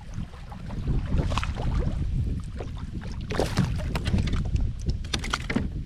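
A hooked largemouth bass splashing at the side of a kayak as it is landed, in several short bursts about a second and a half in, around three and a half seconds, and near the end, over wind rumbling on the microphone.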